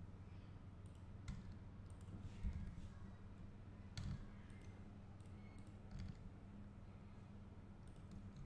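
Computer keyboard and mouse clicks, a handful of separate clicks a second or two apart, over a faint steady low hum.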